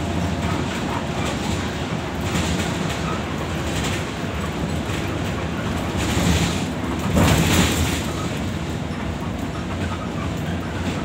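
Steady engine and road rumble inside the cabin of a moving airport bus, with a louder rushing swell about seven seconds in.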